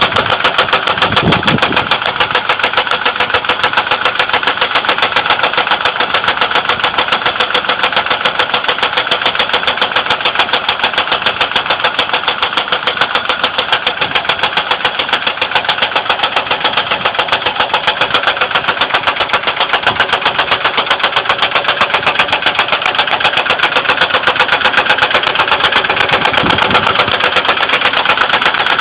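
2002 Ford Windstar's 3.8L V6 engine idling with a rapid, even knocking and tapping. The engine oil is overfull and milky light brown, which the owner takes for coolant mixing into the oil.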